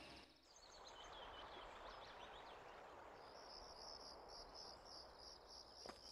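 Faint insects chirping: a few short high chirps, then a steady pulsing trill from about three seconds in. A faint click near the end.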